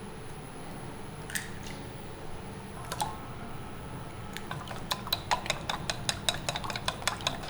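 Green beans being cut up for cooking: a couple of isolated sharp clicks, then from about four and a half seconds in a quick, uneven run of sharp clicks, several a second.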